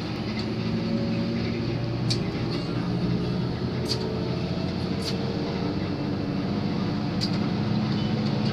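Intercity bus under way, a steady low engine drone and road noise heard from inside, with a few faint rattles or clicks.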